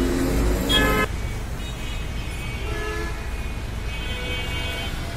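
Street traffic rumbling steadily, with a short, loud vehicle horn toot just before a second in and a few fainter horn toots after it.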